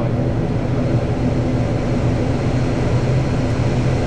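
ATR turboprop airliner's engines and propellers running at steady low power, heard from inside the cockpit as a continuous low hum with a few overtones above it and no change in pitch.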